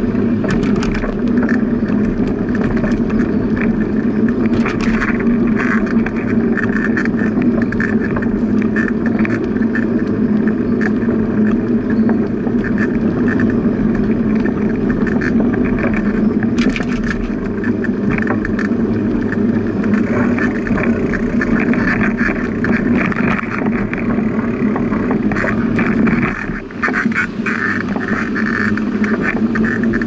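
Steady rolling noise of a moving bicycle, with many small knocks and rattles, and a brief drop about 26 seconds in.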